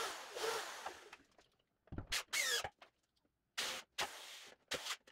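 Cordless drill run in several short bursts, each winding down in pitch as the trigger is let go, driving into pine framing. Before the first burst there is a second of wood rubbing as the frame is shifted into place.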